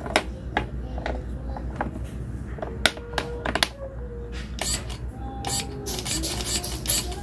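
Shimano Alfine Di2 electronic shifter buttons being pressed: single plastic clicks about every half second at first, then a rapid run of clicks near the end as it steps through the gears.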